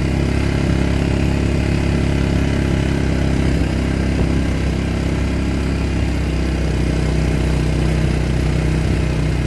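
Tractor engine running steadily under load while it pulls a disc implement along a road's ditch.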